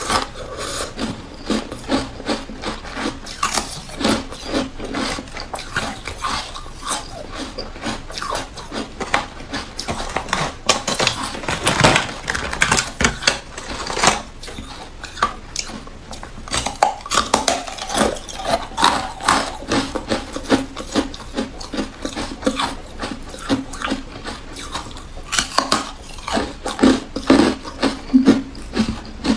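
Carbonated ice sticks being bitten and chewed, a continuous run of crisp, irregular crunches and crackles. Around the middle, ice pieces clatter against the plastic tray as another stick is taken.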